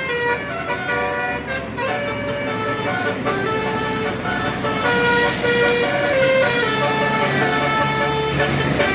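Bus telolet horn, a multi-tone bus horn, playing a melody: a run of held notes that step from pitch to pitch every half second or so, a little louder in the second half.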